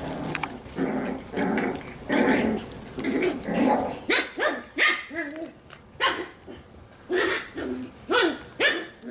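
Seven-week-old Coton de Tulear puppies growling and yapping: low, rough growls for the first few seconds, then a string of short, high barks that bend in pitch, about two a second.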